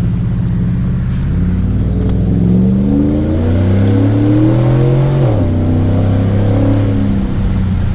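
Trailblazer SS's LS2 6.0-litre V8 accelerating hard, its revs climbing for several seconds, then dropping sharply as the transmission upshifts about five seconds in, and running steadily after. The StabiliTrak does not cut in, taken as a sign that the new wheel hubs with their speed sensors have fixed the fault.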